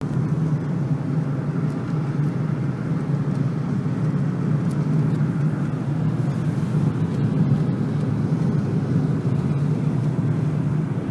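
Steady car noise while driving: engine and road noise with a low hum, heard from inside the moving car.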